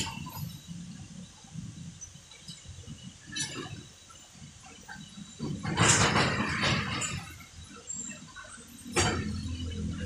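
Low, steady engine rumble of an idling truck, with a few louder bursts of noise from the steel handling and street, and a sharp clank about nine seconds in.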